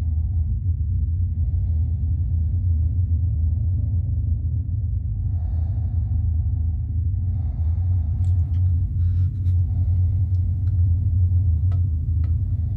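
Low, steady rumbling drone of horror-film sound design, with slow swells that come and go. A few faint clicks and scrapes fall in the second half.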